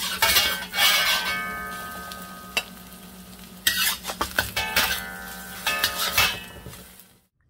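Metal spatula scraping and clanking against a wok while stirring scrambled eggs, the wok ringing after each strike, over a light sizzle. A bout of strikes comes at the start and another from about the middle, and the sound cuts off abruptly near the end.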